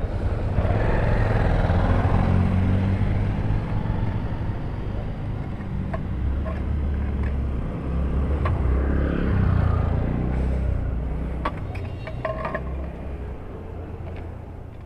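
Low motor-vehicle engine rumble that swells twice and fades near the end. A few light metallic clicks come in the second half as the motorcycle's loosened Akrapovic exhaust is handled.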